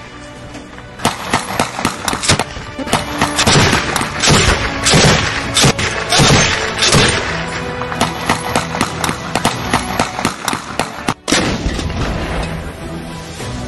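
Tripod-mounted heavy machine gun firing in repeated bursts of shots, with background music playing under the gunfire.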